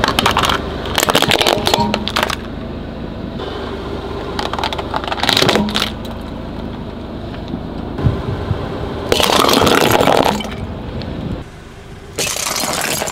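Car tyre rolling over and crushing hollow plastic toys: several separate bursts of cracking and crunching plastic over the low hum of the car.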